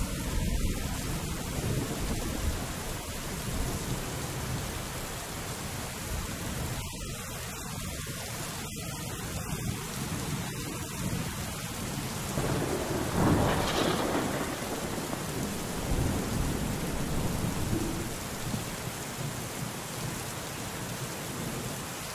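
Steady rain with low rolling thunder; a louder roll of thunder swells up a little past halfway through.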